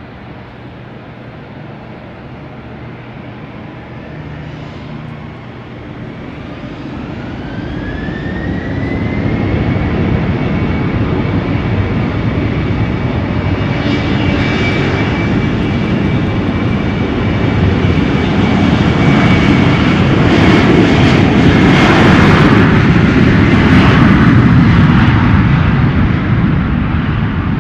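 Airliner engines spooling up, a whine rising in pitch and then holding steady, while the engine sound grows louder to a peak late on and then eases off.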